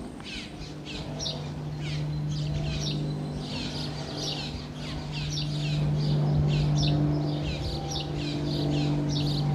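Small birds chirping repeatedly in short, quick falling notes, several a second, over a steady low hum.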